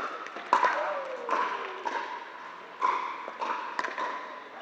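Pickleball paddles hitting the hard plastic ball in a rally: a run of sharp pops, about half a second to a second and a half apart, ringing and echoing in a large indoor hall.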